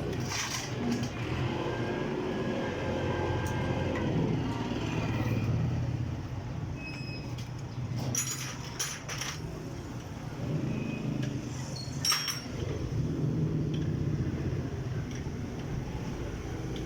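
A vehicle engine running, its hum swelling and easing, with a few sharp metallic clinks of tools.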